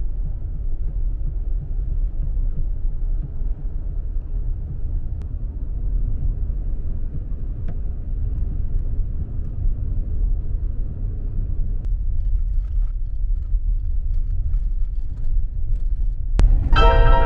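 Steady low rumble of a motor vehicle. Near the end it is cut by a click and keyboard music starts.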